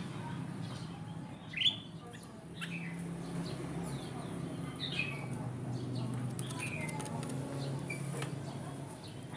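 Kutilang emas bulbul calling in a lure recording: short, clear, falling chirps every second or two, one louder about a second and a half in, over a steady low hum.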